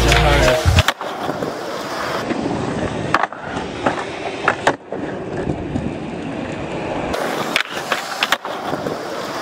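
Skateboard wheels rolling on a smooth concrete skatepark surface, broken by several sharp clacks of the board: pops and hits on the ground and a concrete ledge. Background music cuts out about a second in.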